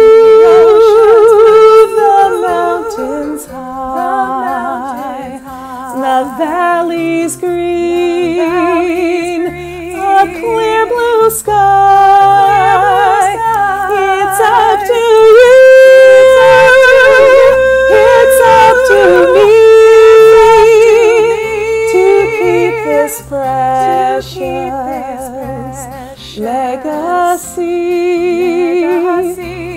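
One woman's voice singing a song in several overlapping parts at once: a main melody layered with her own echo and harmony lines, with vibrato on the held notes.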